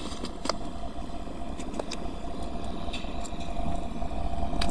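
Pickup truck engine idling with a steady low rumble, with a few faint clicks over it.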